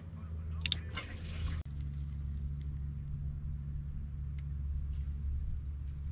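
An outboard boat engine running steadily with a low drone. A few light clicks come early, and the drone cuts out for an instant and resumes about one and a half seconds in.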